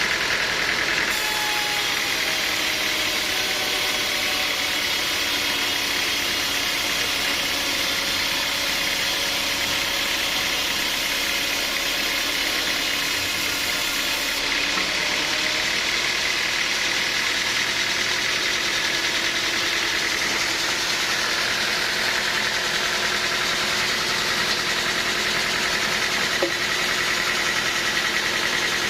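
Sawmill machinery running steadily: a continuous loud mechanical din of hiss with a high whine, and tones that drift slowly in pitch.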